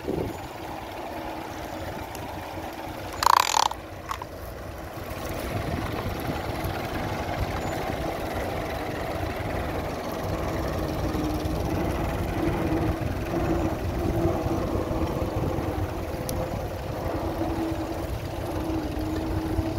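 Tractor engine running steadily with a wavering hum, and wind rumbling on the microphone. One short, sharp, loud sound about three seconds in.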